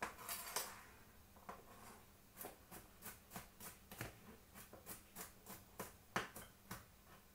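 Knife chopping garlic on a cutting board: a short rustle at the start, then a run of light, even taps, about three a second.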